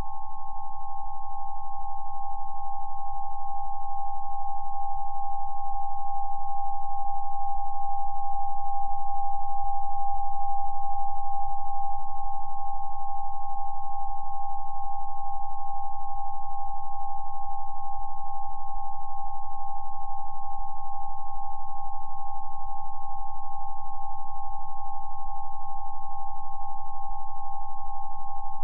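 Steady electronic sine tones: two pure pitches held together without change, a third fainter and lower one beneath them, over a faint low hum.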